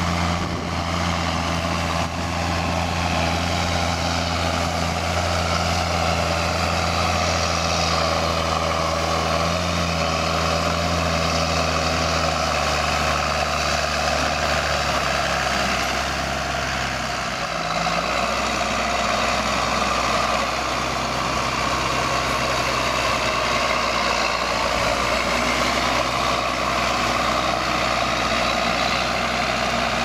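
John Deere 7810's six-cylinder turbo-diesel engine running steadily under load while pulling a five-furrow reversible plough through the soil. The engine note steps lower about halfway through.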